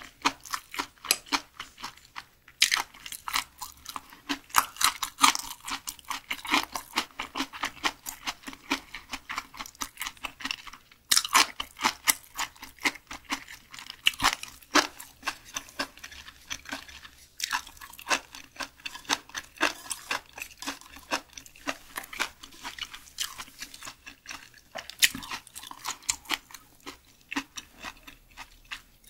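Close-miked chewing of a mouthful of food at an eating-show meal of raw Spanish mackerel and side dishes: wet, crunchy mouth sounds in quick runs of sharp clicks, several a second, with a short lull about two and a half seconds in.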